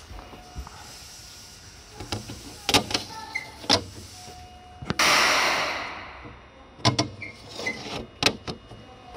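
A person's footsteps cross the platform tiles, with a few short squeaks. About five seconds in comes a sudden loud hiss of air that fades over about a second, from the Seibu 2000 series train standing at the station.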